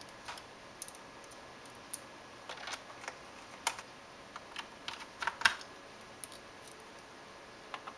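A small screwdriver and screws making irregular light clicks and taps against the plastic underside of a laptop as the bottom-case screws are driven back in. The loudest cluster of clicks comes about five seconds in.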